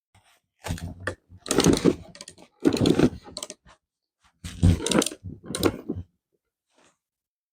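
Four short bursts of rapid clicking and clattering, with gaps of silence between them.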